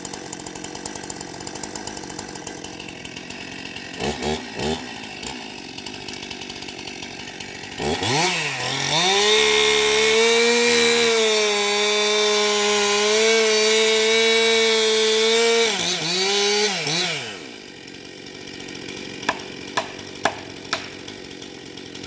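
Chainsaw idling, revved briefly a few times, then held at high revs for about eight seconds in a felling cut through a conifer trunk before dropping back to idle. A few sharp knocks come near the end.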